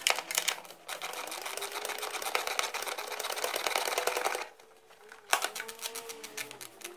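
Ratchet wrench clicking rapidly as a 15 mm nut is worked loose, stopping about four and a half seconds in; after that, one sharp click and a few lighter clicks and knocks.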